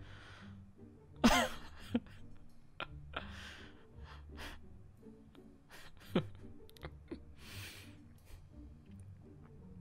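A person laughing breathily under their breath, in soft puffs and sighs, with a short high squeal that falls in pitch about a second in.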